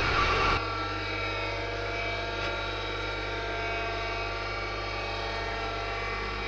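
A rough burst of noise for the first half second, then a steady machine drone made of many even tones, unchanging to the end.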